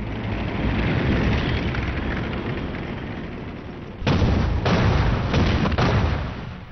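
Battle sound of artillery fire: a rumble that fades over the first few seconds, then several loud blasts in quick succession about four seconds in.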